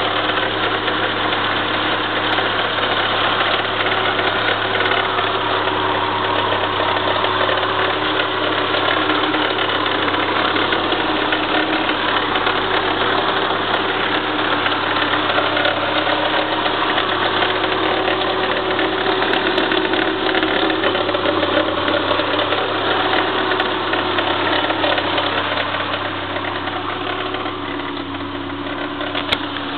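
Engine idling steadily, with a noise that the owner considers abnormal; it eases slightly near the end.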